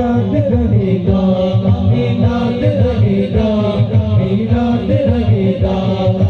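A group of men chanting a naat together in unison, amplified through microphones and a loudspeaker system.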